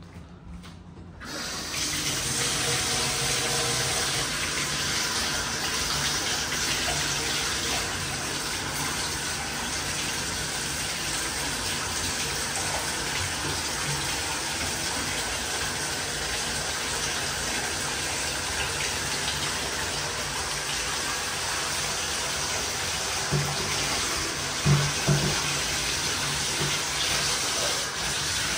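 Tap water running steadily from a handheld shower head into a bathtub, starting about a second in. A few short knocks come near the end.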